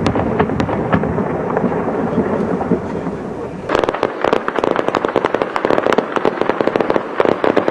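Gunfire and explosions in a street clash: a rumbling din with scattered sharp cracks, then from about four seconds in a dense, continuous crackle of gunfire.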